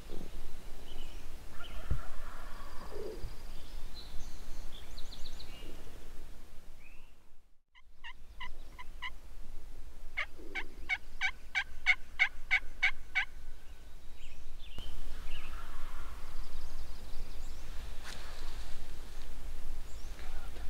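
Wild turkeys calling: gobbles, and in the middle a long run of evenly spaced, clear calls at about four a second.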